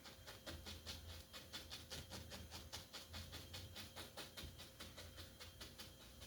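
Faint, quick dabbing strokes of a small paintbrush on canvas, about six or seven short scratches a second, as acrylic paint is worked on with short strokes.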